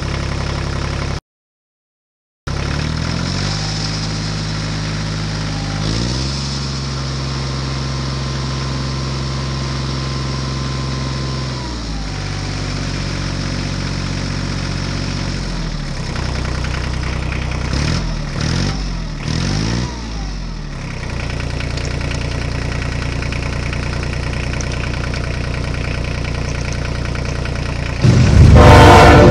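Tractor engine running with a steady low note that rises and falls in pitch several times, cutting out for about a second near the start. Near the end a much louder train horn comes in.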